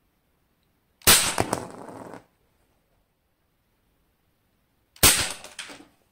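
Two shots from a Crosman 2100 Classic multi-pump pellet rifle, pumped twelve times, about four seconds apart. Each is a sharp crack followed by about a second of clattering as the plastic bottle caps and the wooden block on top of them are struck and knocked about.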